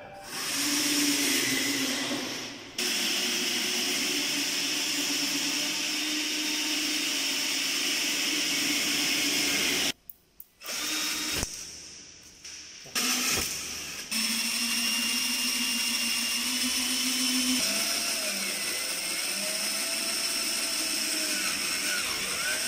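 Handheld cordless drill running against the metal frame of a chalkboard cabinet: a steady motor whine for several seconds, a short stop about ten seconds in, two brief bursts, then long steady running again.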